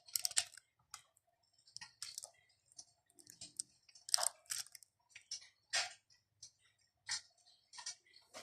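RealFlame Mirage 25 electric fireplace's crackling-fire sound effect: irregular short pops and crackles with short gaps between them.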